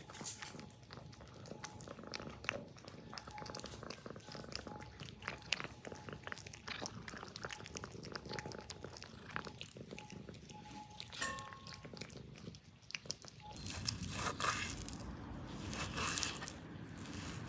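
Two cats eating from a metal bowl, with quick wet chewing and lapping clicks. About 13 seconds in this gives way to a knife slicing raw meat on a wooden cutting board.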